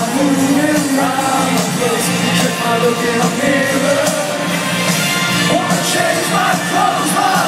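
Amplified live rock band playing, with a man singing lead into a microphone, heard from among the audience at a large open-air concert.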